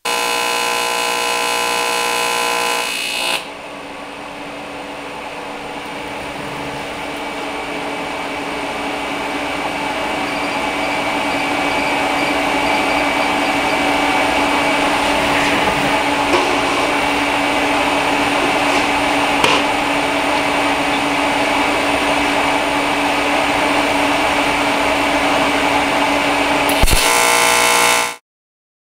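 AC TIG welding arc on aluminum buzzing. A harsh buzz drops away suddenly about three seconds in, then a steadier hum slowly grows louder and holds. Near the end a click brings back the harsh buzz briefly before it cuts off.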